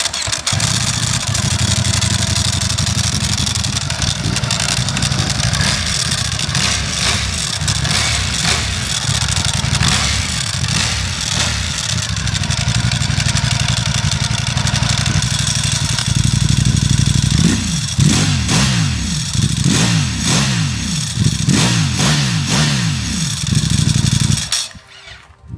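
Ducati Streetfighter V4 Lamborghini's V4 engine idling warm through its stock catalysed, muffled exhaust, with the dry clutch clattering loudly over a quiet, restrictive exhaust note. In the last third it is blipped several times in quick succession, each rev falling straight back, held down by the soft rev limiter in neutral.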